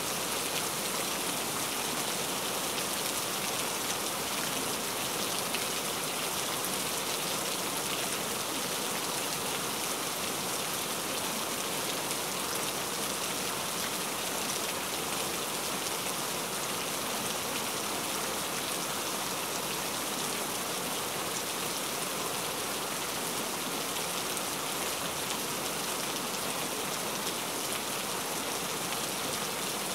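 Steady rain, an even hiss with no breaks or separate drops standing out.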